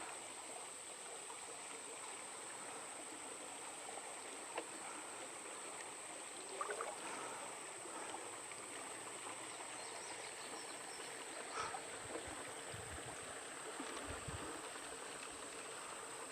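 Faint, steady flowing and trickling of river water, with a few small knocks.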